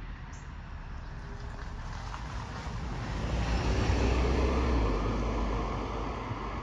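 A passing vehicle: a low rumble and a broad noise that swell to a peak about four seconds in and then fade.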